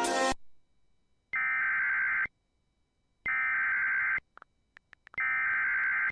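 Emergency Alert System SAME header: three bursts of digital data tone, each about a second long and about a second apart. It is the coded start of an alert activation, here carrying a severe thunderstorm warning.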